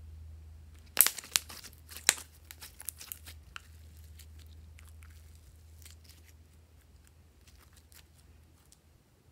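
Glittery yellow glossy slime being stretched and squeezed by hand, giving sticky crackling pops. The pops come in a dense cluster starting about a second in, then thin out to scattered clicks.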